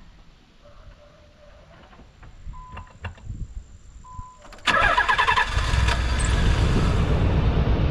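Nissan 300ZX's V6 engine being started after a couple of short beeps: the starter cranks briefly about two-thirds of the way in, the engine catches, and it runs steadily on its freshly fitted spark plugs.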